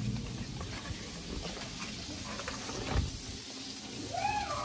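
Sausages frying in a pan, a steady low sizzle, with a single knock about three seconds in.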